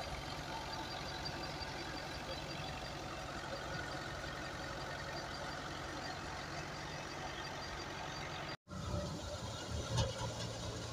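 Fiat 640 tractor's diesel engine running steadily while driving a threshing machine, the engine and thresher drum making a continuous mechanical din. The sound drops out for an instant about eight and a half seconds in, and a louder knock comes about a second later.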